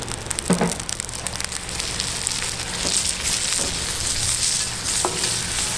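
Oil sizzling on the hot steel plate of a wood-fired fire-ring grill. It starts as scattered crackles and builds into a steady frying sizzle from about two seconds in, as a risotto-stuffed squid is laid in the oil.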